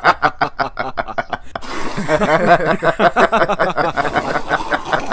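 Laughter: quick, rhythmic ha-ha pulses for about the first second and a half, then a thicker, busier stretch of laughing.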